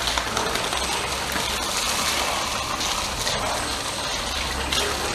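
Running water pouring over a wet German Shepherd's coat and splashing onto the paving, a steady rushing noise with a low hum beneath it.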